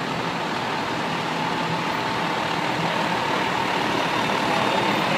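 Diesel engine of a fire engine pumper running as the truck rolls slowly past at parade pace, growing a little louder near the end.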